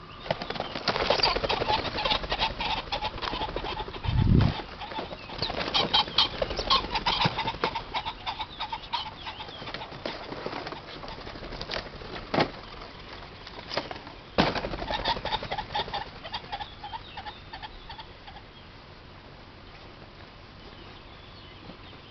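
Released pheasants taking flight: bursts of rapid wingbeats, densest in the first eight seconds or so. There is a low thump about four seconds in and a few single knocks later.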